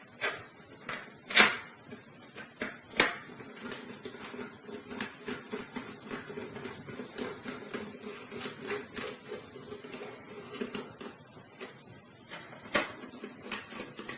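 Hand screwdriver driving screws through a metal mounting bracket into the side of a DVD drive. A few sharp clicks and knocks come in the first three seconds and another near the end, and in between there are several seconds of fast, small ticking and scraping as the screw turns.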